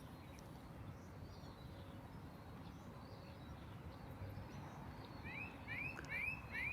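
Faint outdoor background noise, with a bird giving a quick series of short chirps near the end.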